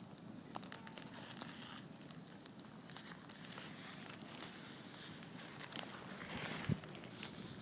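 Log-cabin campfire crackling, with scattered sharp pops and snaps over a faint steady hiss.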